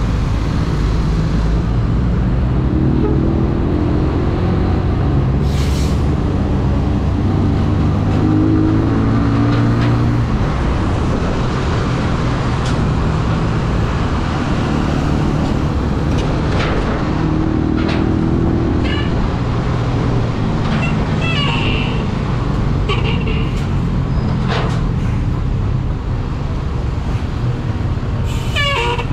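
An AKT NKD 125 motorcycle's single-cylinder four-stroke engine running under way in city traffic, with a steady rush of wind and road noise. A few short sharp traffic sounds break in, and a brief wavering high tone comes near the end.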